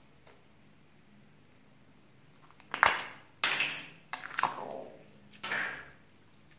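Clear slime squeezed out of a small soft plastic cup: four wet squelches, starting sharply about three seconds in, the first the loudest, several dropping in pitch.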